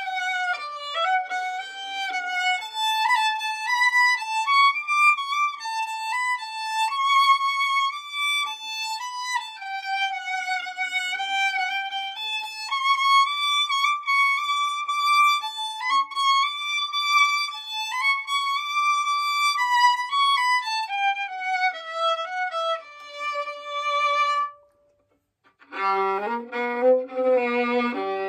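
Violin played solo: a melody in the instrument's high register that winds down in pitch, stops for about a second near the end, then starts again with low notes.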